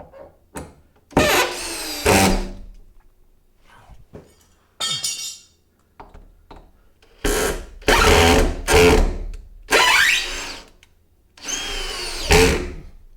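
Power drill running in about seven short bursts, its pitch sliding up and down as it speeds up and slows, while screws are driven into a plywood camper wall.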